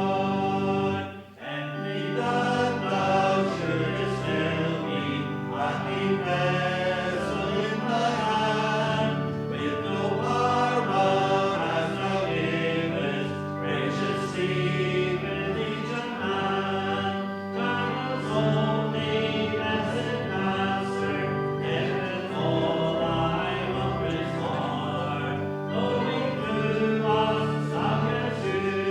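Congregation singing a hymn with instrumental accompaniment, the sung lines held and continuous apart from a short break about a second in.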